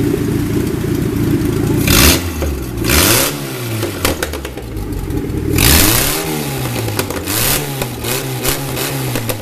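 Volkswagen AP 1.8 inline four-cylinder engine being revved in a series of throttle blips, its pitch rising and falling over and over, with loud rasping blasts on the strongest revs about two, three and six seconds in.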